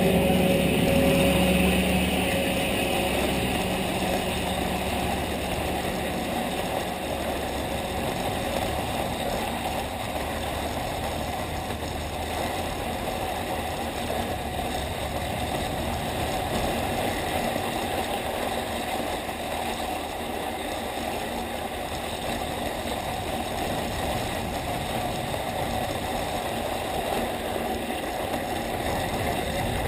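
Steady rushing, scraping hiss of skis sliding over groomed snow while being towed uphill by a T-bar lift. A low hum fades out over the first couple of seconds.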